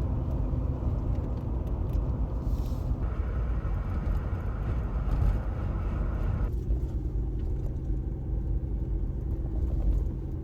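Jeep driving on the road: a steady low rumble of engine and road noise. The sound changes character abruptly about three seconds in and again about two-thirds of the way through.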